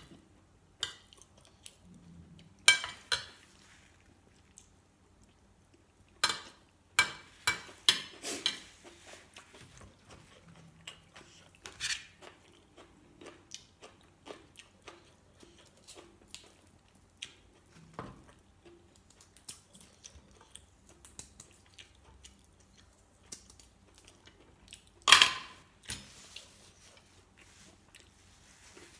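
Close-up eating sounds: a spoon and fork clinking on a plate, then chewing, with small regular mouth clicks about once a second in the middle. One sharp knock, the loudest, comes near the end.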